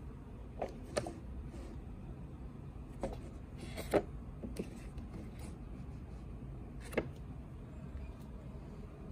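Cup-noodle containers being handled and set down on a wooden table: a handful of light knocks, the sharpest about four seconds in, over a low steady room hum.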